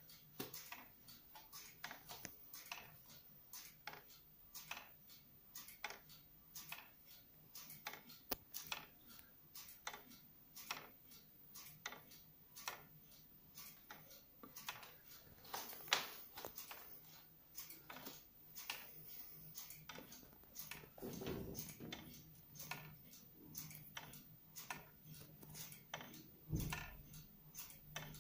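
Wooden-gear wall clock ticking steadily, its wooden escapement giving about two dry clicks a second. A faint low hum comes up in the second half, and there are a couple of dull thumps.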